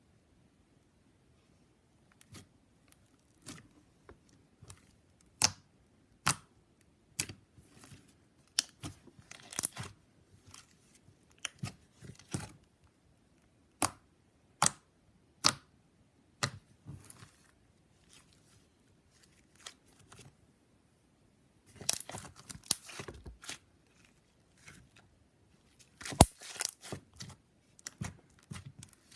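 Slime being pressed and poked, giving sharp crackling pops one or two at a time at irregular intervals, with denser runs of crackles about two-thirds of the way through and again near the end.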